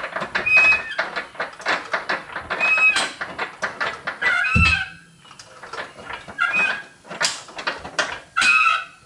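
Hydraulic floor jack being pumped to lift the rear subframe and drive unit: a short high squeak about every two seconds with each handle stroke, over a run of clicks and metal rattles, with a dull thump about four and a half seconds in.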